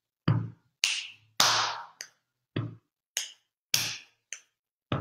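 Body percussion keeping a steady 4/4 beat, about two strokes a second. Low thumps of slaps on the chest and feet alternate with sharper finger snaps and claps.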